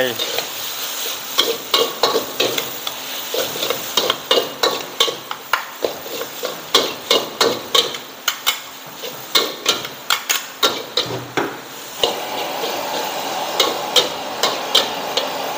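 Stir-frying noodles in a wok over a gas burner: a metal ladle and tongs clack and scrape against the wok in quick, irregular strikes over a sizzle from the water just added to the hot pan. After about twelve seconds the strikes mostly stop and a steady sizzle goes on.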